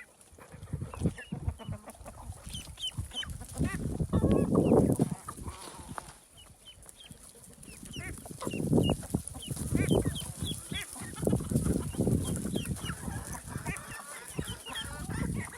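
Chickens clucking, with many short high chirps throughout and louder stretches of clucking about four seconds in and again from about eight to twelve seconds.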